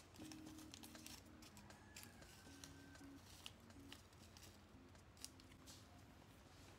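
Near silence: faint background music with held notes, and a few soft ticks.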